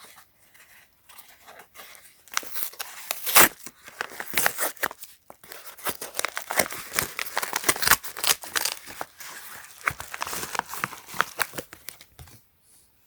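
Padded bubble mailer being torn open and its plastic crinkled: an irregular run of ripping and crackling that starts about two seconds in and dies away near the end.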